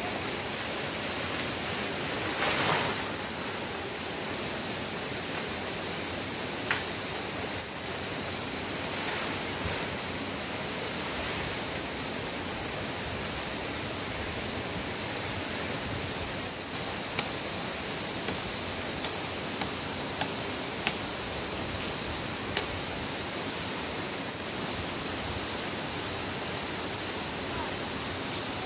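Steady rushing noise over a faint, steady high whine, with a handful of sharp snaps and crackles from footsteps pushing through dry forest undergrowth and leaf litter, most of them in the second half.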